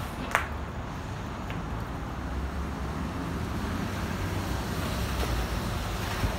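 Steady outdoor rumble of wind on the microphone and distant traffic, with one sharp click about a third of a second in.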